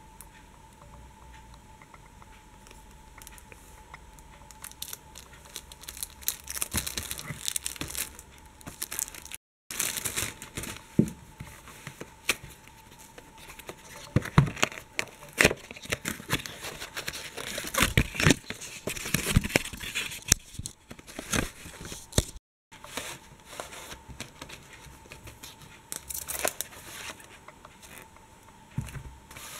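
Cardboard box and wrapping of a model kit being handled and opened: irregular crinkling, tearing and rustling, with sharp clicks and taps, busiest in the middle. A faint steady whine sits underneath, and the sound cuts out completely for a moment twice.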